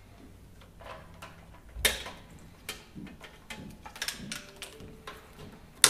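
Rubber breather hoses being pulled free by hand on a Harley-Davidson motorcycle: scattered clicks, taps and rustles, with a sharp knock about two seconds in and another at the very end.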